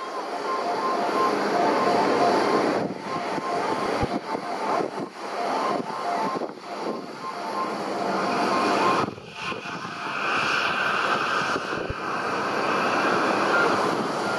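An airliner's engines running loud and close: a steady rush of noise with whining tones, which give way to higher-pitched whines about ten seconds in.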